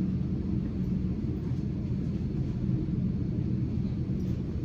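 A steady low rumble and hum, unchanging throughout, with no other sound standing out.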